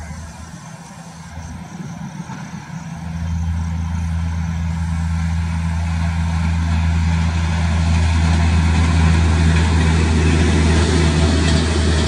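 Passenger train passing, hauled by a WAP-7 electric locomotive: a steady low hum that grows much louder about three seconds in, with the rolling noise of the coaches building toward the end.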